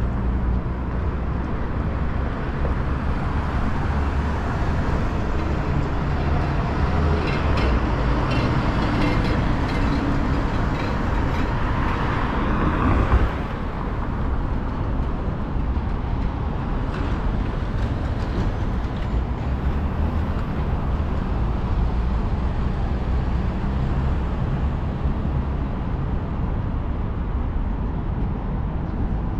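City street traffic: vehicle engines running and passing in a steady rumble, with one louder pass building to a peak about halfway through that then drops away sharply.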